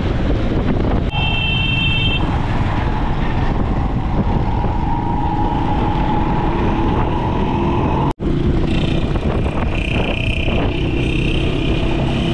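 Road noise from riding pillion on a motorcycle through city traffic: the engine running with wind on the microphone, and a vehicle horn sounding for about a second, about a second in. The sound breaks off for an instant about eight seconds in, then steady engine and traffic tones carry on.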